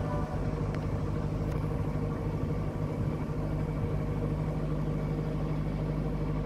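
Narrowboat engine running steadily at cruising speed, an even low hum.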